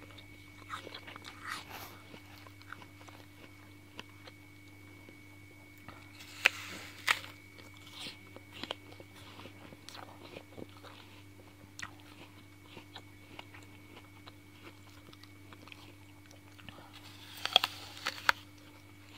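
A person biting into and chewing a crisp apple. There are two loud crunching bites about six and a half and seven seconds in, and another cluster of bites near the end, with quieter chewing crunches between.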